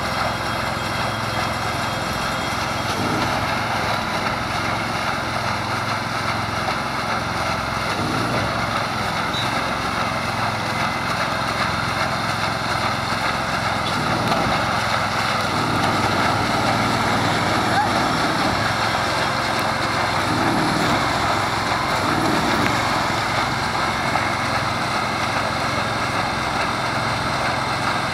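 Engine of a small aquatic weed harvester boat running steadily at constant speed.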